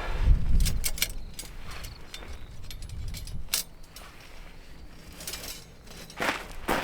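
Scattered clinks and clicks of small hard objects being handled, with a low rumble in the first second.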